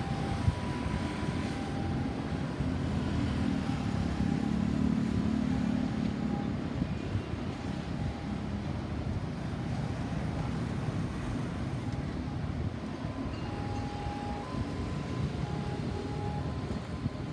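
Road traffic: motor vehicles running past with a steady rumble that swells in the first half, and a faint two-note tone alternating high and low in the background.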